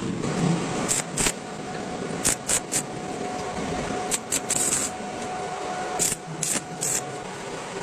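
Electric welding arc running: a steady crackling hiss broken by irregular sharp pops.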